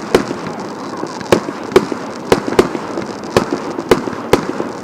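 Fireworks going off: a run of about eight sharp bangs at irregular intervals, over a steady background hiss.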